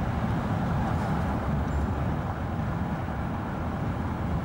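Steady low rumble of a car travelling at highway speed: engine and tyre noise.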